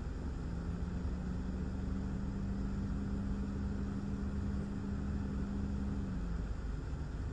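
Steady rumbling noise of thunderstorm wind and rain heard from inside a car. A steady low hum joins it just after the start and stops about six seconds in.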